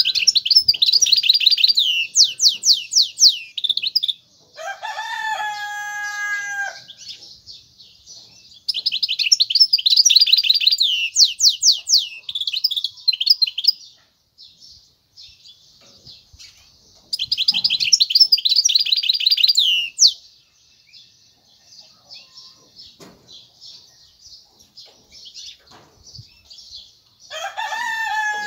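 Goldfinch mule (goldfinch × canary hybrid) singing in three bursts of fast, high trills and twitters, with softer twittering between them. A rooster crows twice, a few seconds in and again near the end.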